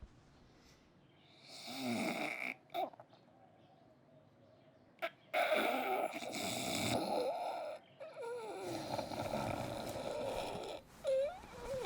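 A person snoring loudly: three long, rasping snores, each lasting a couple of seconds with short quiet gaps between them. A brief wavering vocal sound follows near the end.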